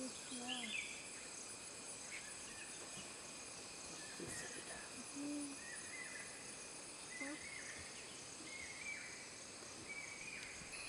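Steady high insect drone with short bird calls repeating every second or two, and a single soft thump about four seconds in.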